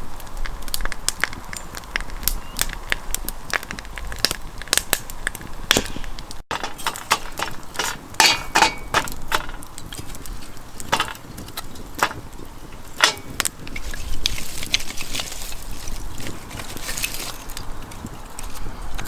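Dry wood crackling and snapping in an irregular run of sharp cracks, thickest in a cluster a few seconds after the start and again near the end.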